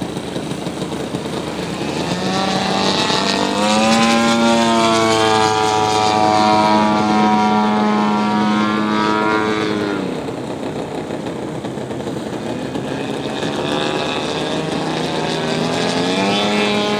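Propeller-driven radio-controlled model airplane flying overhead, its engine buzzing with a clear pitch. The pitch climbs and the sound grows louder over the first few seconds, then holds. It drops away about ten seconds in and climbs again near the end.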